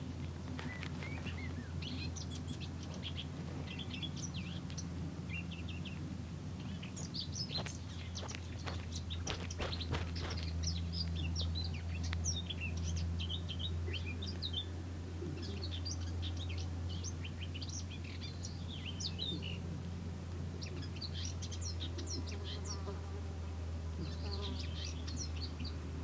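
Garden songbirds chirping and twittering in many short, high phrases, over a steady low hum. A few sharp clicks come about seven to ten seconds in.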